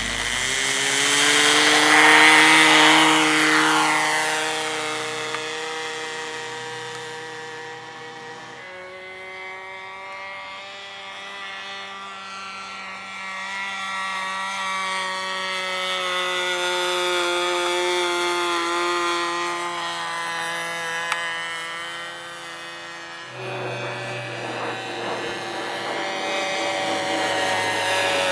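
O.S. 30 two-stroke glow engine of a model airplane running at high throttle, a buzzing whine. It is loudest about two seconds in during the takeoff roll, then rises and falls in loudness and pitch as the plane climbs away and flies back past.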